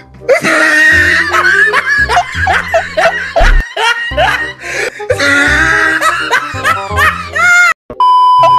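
Comedy background music mixed with added laughter sound effects. Near the end the music cuts out and a steady test-tone beep sounds.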